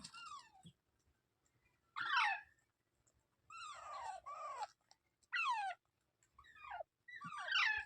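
Green parrot giving a series of short calls, about six, each sliding down in pitch, with short pauses between them.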